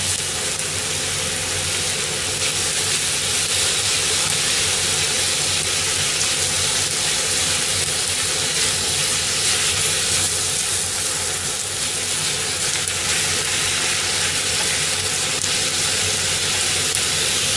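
Stir-fry of sliced meat, bean sprouts and onion sizzling steadily in a frying pan over a gas burner as the food is stirred and pushed about with chopsticks.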